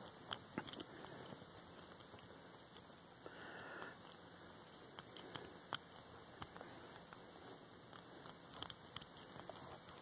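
Faint, irregular small clicks and scrapes of a lock pick working the brass pin tumblers of a Chateau C870 stainless-steel disc padlock under light tension. There is a short scratch about three and a half seconds in.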